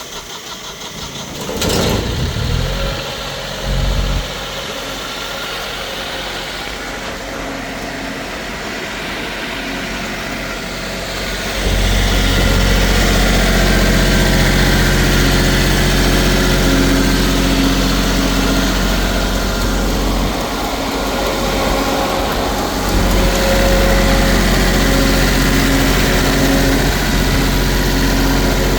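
Diesel engine of a Wacker generator/light tower starting and running. About twelve seconds in it steps up to a louder, steady higher speed; it drops briefly a little after twenty seconds, then comes back up.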